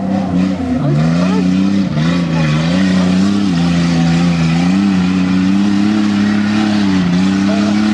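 Off-road race vehicle's engine revving hard under load as it climbs a steep muddy slope, its pitch held high with repeated dips and surges as the throttle works.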